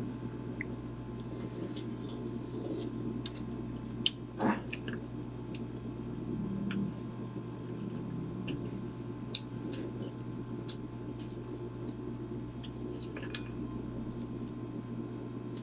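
Balut eggshells being cracked and peeled by hand: faint scattered clicks and crackles over a steady low room hum.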